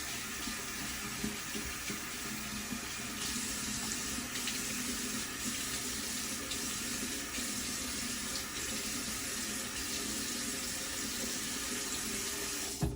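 Water running steadily from a sink tap while a face is wetted for a shave; the flow stops abruptly near the end.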